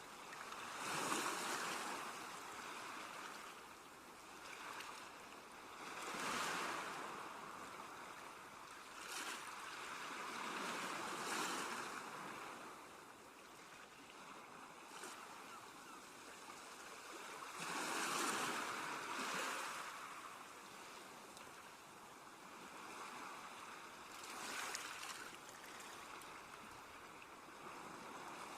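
Sea waves surging in and drawing back, a hissing wash that swells and fades five times, about every five to seven seconds.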